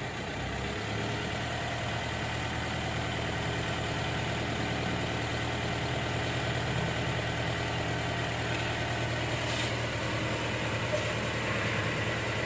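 Mitsubishi Strada Triton's diesel engine idling steadily at a raised idle of about 1,175 rpm while the scan tool runs the small injection quantity learning for newly fitted injectors and ECU.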